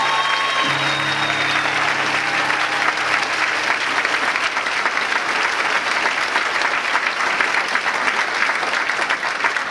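Audience applauding steadily, with the last notes of an acoustic guitar ringing out and fading in the first couple of seconds.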